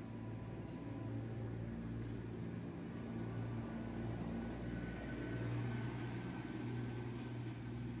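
A vehicle engine running steadily, a low even hum of constant pitch.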